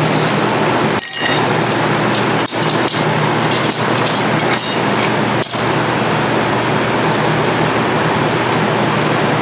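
Steady loud hiss of workshop background noise, with a few light metallic clinks in the first half as steel and brass clutch plates are set down onto the gearbox's clutch pack.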